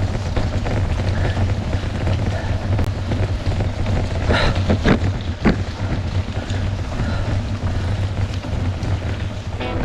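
Wind buffeting the camera's microphone as a mountain bike rides along a trail, a steady low rumble, with a few rattles and knocks from the bike over rough ground about halfway through.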